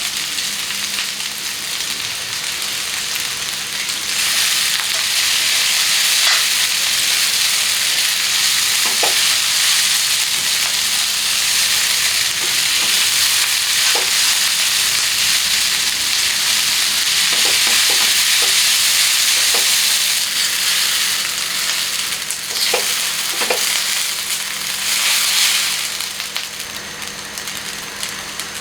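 Food sizzling in hot oil in a pan as it is stir-fried, with a few light clicks scattered through. The sizzle grows louder about four seconds in and eases off near the end.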